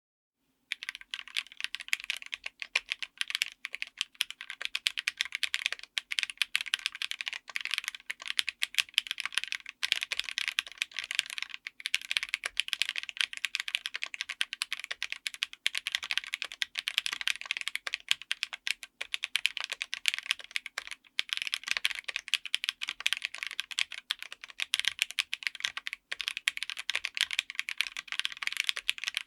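Continuous fast typing on a full mechanical keyboard fitted with Akko CS Crystal linear switches, all-polycarbonate, on an FR4 plate: a dense, irregular clatter of keystrokes that starts just under a second in.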